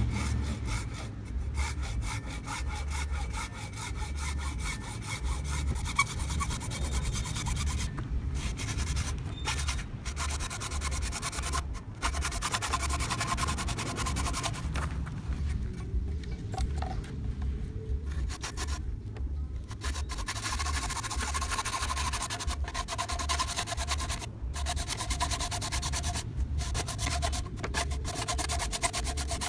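Hacksaw cutting into PVC plastic pipe in steady back-and-forth strokes, the blade rasping through the plastic, with a few short pauses.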